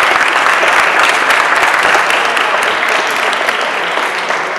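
Audience applauding, a dense patter of many hands clapping that begins to ease off near the end.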